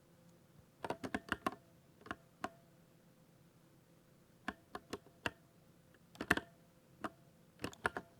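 Keystrokes on a 60% mechanical keyboard: sharp key clicks coming in irregular bursts, a quick run of several keys, then single presses and short clusters with gaps of up to two seconds between them.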